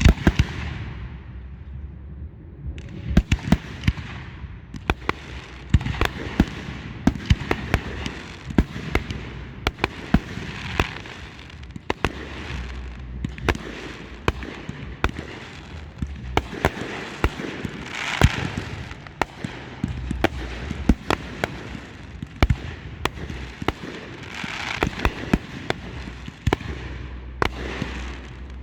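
Fireworks display: many sharp bangs in quick, irregular succession, with swells of crackling between them. One loud bang comes right at the start.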